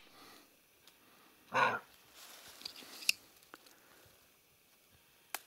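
A single short, hoarse animal call about one and a half seconds in, then faint rustling with small ticks and a sharp click near the end.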